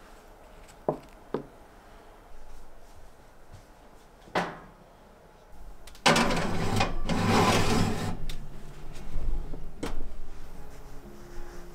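Kitchen handling sounds: a few sharp clicks and a knock, then a ceramic baking dish scraping for about two seconds as it is slid onto a metal oven rack, and one more click near the end.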